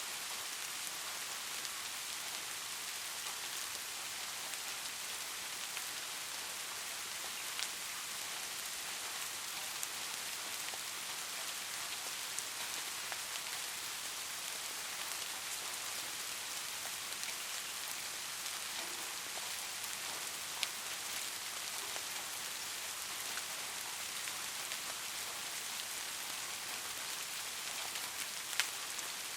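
Steady rain falling, an even hiss with scattered individual drops ticking, a few louder drips now and then.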